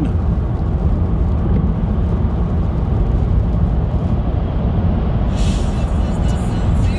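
Steady low rumble of a car's engine and tyre noise on the road, heard from inside the moving car.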